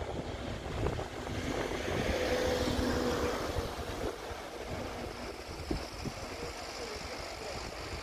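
A motor vehicle passing on a nearby road, its engine and tyre noise swelling for a few seconds and then easing off, over wind buffeting the microphone.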